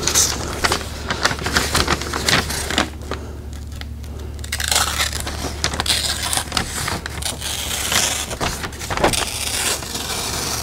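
Brown masking paper being handled, creased and pressed into place by hand, rustling and crackling irregularly.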